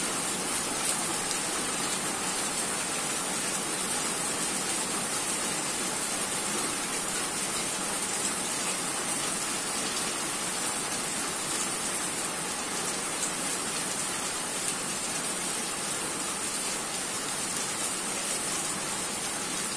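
Heavy rain falling steadily, an even hiss with a few separate drops ticking through it.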